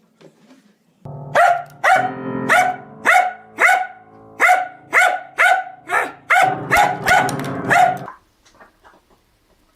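A dog barking repeatedly, about two barks a second for some seven seconds, over a steady low hum, then stopping.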